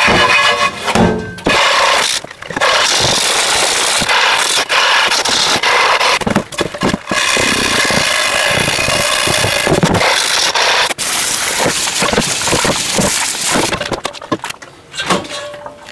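Chain-mail scrubber grating hard against the enamel of an old cast-iron Le Creuset pot, worked with Bar Keepers Friend on hardened carbon buildup: a loud, rough scrubbing with brief pauses that dies away near the end.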